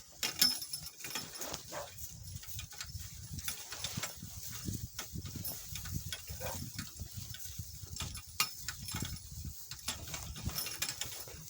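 Donkey-drawn cart moving at a walk: irregular knocks and rattles from the cart and the donkey's hooves over a low rumble. The sharpest knocks come about half a second in and a little after eight seconds.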